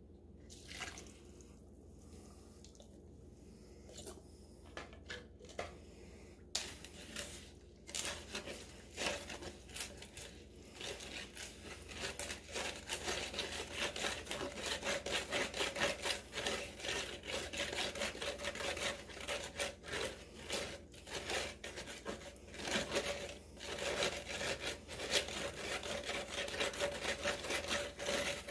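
A stick stirring and scraping wet cement mix in a plastic cup: a rapid, continuous scraping that starts about six seconds in.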